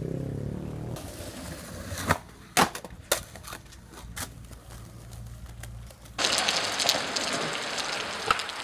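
Skateboard on asphalt: a handful of sharp wooden clacks from the board hitting the ground, then from about six seconds in a steady hiss of skateboard wheels rolling over wet pavement.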